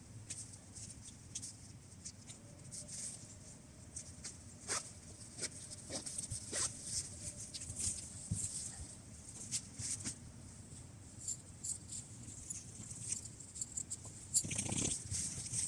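Irregular rustling and scratching of tent fabric being handled while a small bivouac tent is pitched, with a louder rustle near the end.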